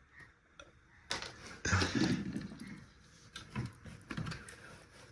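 Plastic and metal parts of a disassembled radio-cassette-CD player being handled: a sharp click about a second in, then a short run of knocking and scraping, and a few lighter knocks.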